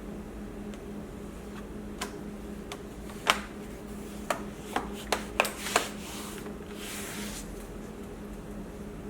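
A run of about eight sharp clicks and taps of small hard objects being handled, the loudest about three seconds in, then a short rubbing sound, over a steady low hum.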